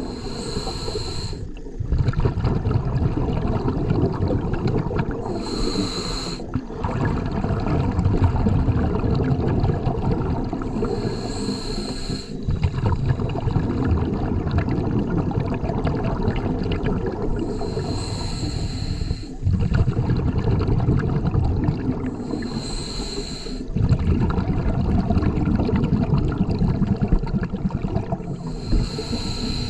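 Scuba diver breathing through a regulator underwater: six inhalations, each a hiss of about a second and a half, coming every five to six seconds, with a lower rumble of exhaled bubbles between them.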